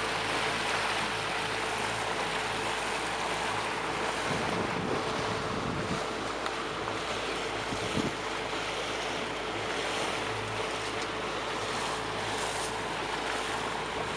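Speedboat under way: a steady engine hum under the rush of water past the hull, with wind buffeting the microphone.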